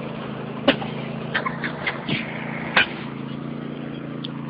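Riding lawn mower engine running steadily, with a few sharp knocks or clicks in the first three seconds.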